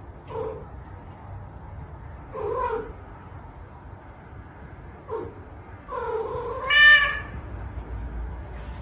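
A cat meowing: three short meows spaced a couple of seconds apart, then a longer, drawn-out call near the end that rises higher and is the loudest.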